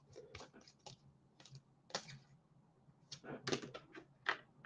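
Faint, irregular light clicks and taps, sparse at first and quickening into a busier cluster a little after the halfway point.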